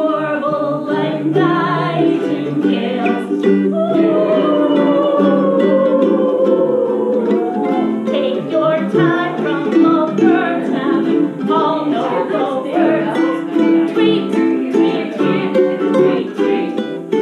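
Ukulele strummed, with voices singing along to it.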